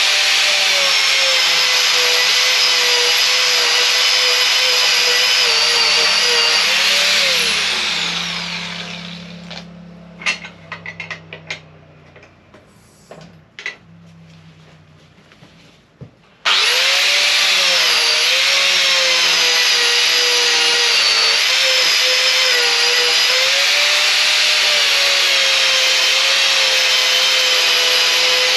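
Corded electric angle grinder grinding into a wooden log, its motor whine dipping and rising with the load. About seven seconds in it is switched off and spins down, a few knocks and clicks of handling follow, and about sixteen seconds in it starts again abruptly and grinds steadily.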